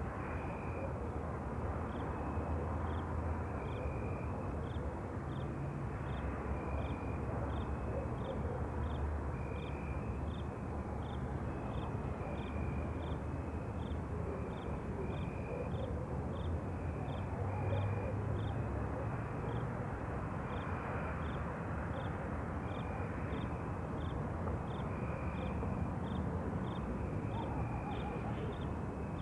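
Night ambience: insects chirping in a steady rhythm, one a short high chirp repeating about once a second or a little faster, another a longer, lower chirp every couple of seconds. Underneath runs a continuous low rumble, like distant traffic.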